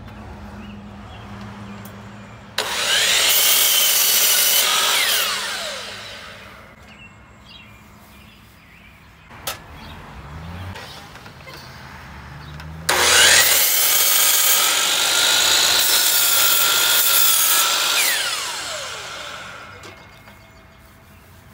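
DeWalt sliding compound miter saw cutting cedar boards, twice: each time the motor starts suddenly with a loud whine, the blade cuts through the wood, and the blade winds down with a falling pitch after the trigger is released. A sharp click comes between the two cuts.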